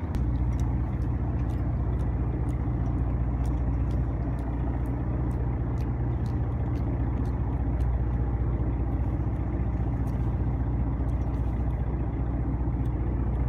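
A fishing boat's engine running steadily as a low, even hum, with scattered faint clicks above it.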